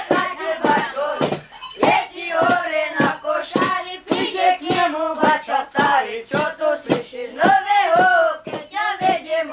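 Young boys' voices singing a Nativity carol together, a steady sung melody broken into short syllables.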